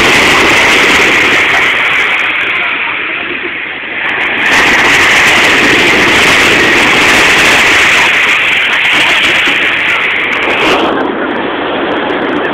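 Surf breaking and washing up a sandy shore, a loud steady rush that eases briefly about four seconds in and then comes back.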